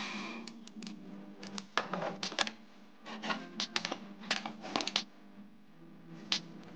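A scatter of small clicks and taps from tools handled on a cedar fence board as it is measured and pencil-marked and a speed square and circular saw are set on it for the next cut. The clicks fall irregularly for the first five seconds or so, then after a short lull one more tap comes near the end.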